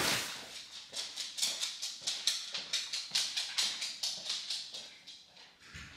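A quick, even run of light clicking taps, about four or five a second, that die away near the end.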